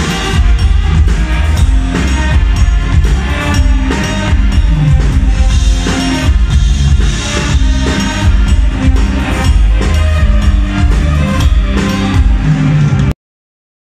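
Rock band playing loud music, with drum kit and electric guitar to the fore. It cuts off abruptly near the end.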